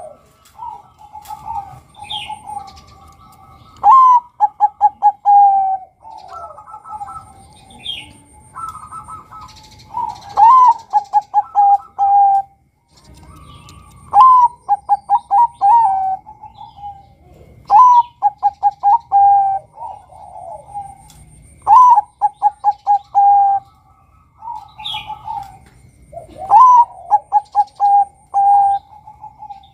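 Male zebra dove (Bangkok-type perkutut) cooing. About six loud phrases come every three to four seconds, each a higher opening note and then a quick run of short staccato coos that drop slightly in pitch, with fainter calls between them.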